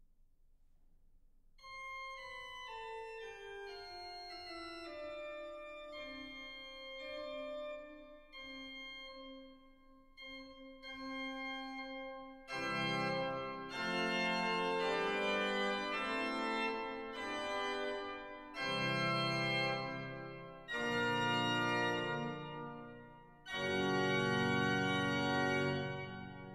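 Sampled pipe organ (the Strassburg sample set of Johann Cyriacus Werner's 1743 organ) playing a slow falling line of single notes. About halfway in it moves to a series of loud full chords with bass notes underneath, each block held and then released.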